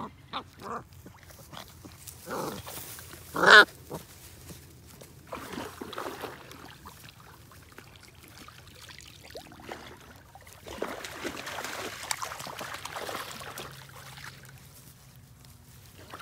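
A dog vocalising, with one short, loud bark or yelp about three and a half seconds in and a few fainter short calls, between quieter stretches of noise.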